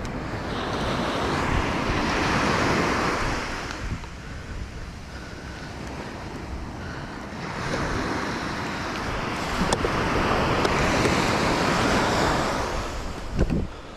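Sea surf on a sand beach: two waves break and wash up the shore, each swelling and fading over several seconds, with wind on the microphone. There is a short knock near the end.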